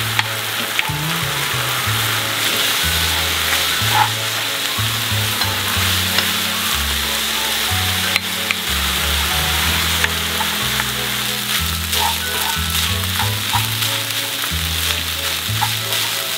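Beef, mushrooms and rice sizzling steadily in a hot skillet while being stirred and tossed, with scattered sharp taps of the utensil against the pan.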